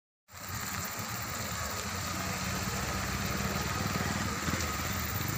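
An engine running steadily, cutting in abruptly just after the start, with a steady hiss above it.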